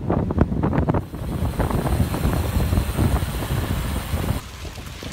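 Wind buffeting the microphone of a phone carried on a moving road bike, a loud low rumbling rush. The sound changes abruptly about a second in and again near the end.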